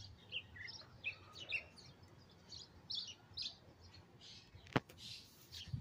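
Small garden birds chirping: many short, high chirps scattered through, with one sharp click a little before the end.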